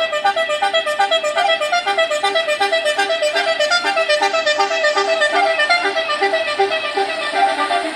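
Basuri musical vehicle horn playing a fast tune of short, quick-changing notes.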